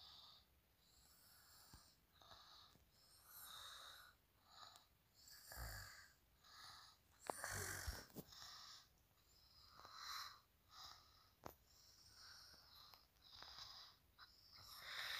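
Near silence with faint, irregular breathing close to the microphone, a dozen or so short puffs, and a few soft clicks.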